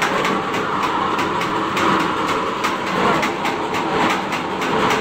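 Shevaya (vermicelli) extruding machine running, pressing dough out in strands: a steady mechanical clatter with a fast, regular clicking several times a second.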